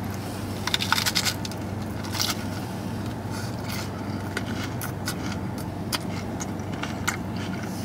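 A Taco Bell Volcano Taco's crunchy red shell being bitten and chewed: scattered crunches and crackles, thickest in the first couple of seconds, over a steady low hum.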